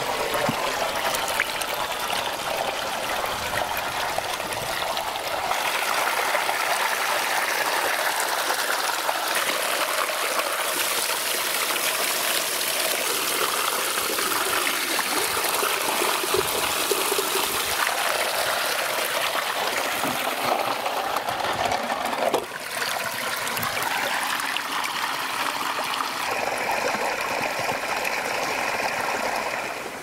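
Shallow stream water rushing and splashing over rocks as a steady noise. Its tone and level change abruptly several times.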